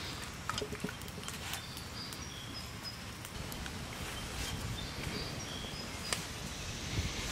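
Outdoor ambience with small birds chirping in short high notes, a few sharp light clicks, and soft pats of hands kneading bread dough on a wooden board.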